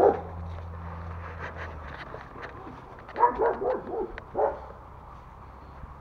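Dogs barking: a quick run of several barks about three seconds in, then one more bark a moment later.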